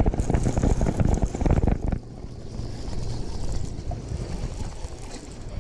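Wind buffeting the microphone, loud for about two seconds, then dropping suddenly to a quieter steady low rumble.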